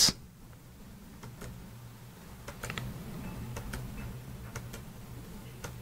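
Light, scattered key clicks from a computer keyboard, a few taps spread irregularly over the seconds, over a faint steady low hum.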